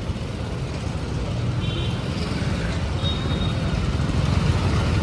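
Motorcycle engine running at low speed in slow, crowded street traffic, with the surrounding traffic noise, the whole growing gradually louder. The bike is a TVS Apache RTR 160 4V with a single-cylinder four-stroke engine. Two brief high beeps come about two and three seconds in.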